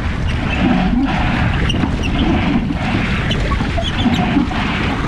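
Wind buffeting the microphone in a steady low rumble over splashing water, aboard a small rowing boat crossing choppy lake waves.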